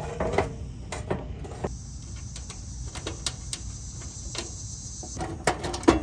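Scattered light clicks and knocks of a sheet-metal access panel being fitted back onto an outdoor air-conditioner condenser unit and its screws started with a nut driver. A faint steady high hiss runs through the middle few seconds.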